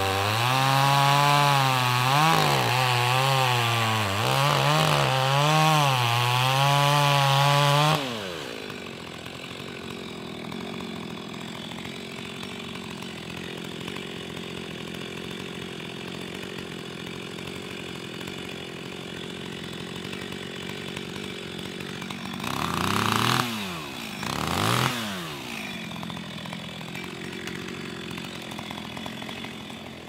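Two-stroke chainsaw cutting through a dead chestnut log at full throttle, its pitch dipping and recovering under load for about eight seconds. It then drops to a steady idle, is revved briefly twice about two thirds of the way through, and idles on.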